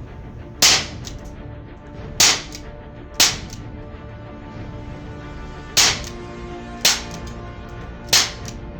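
W119 airsoft pistol firing six single shots, each a sharp crack, spaced unevenly about one to two and a half seconds apart.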